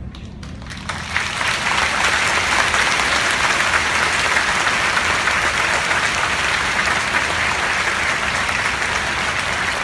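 Large crowd applauding: a few scattered claps, then full, steady clapping from about a second in that eases a little near the end.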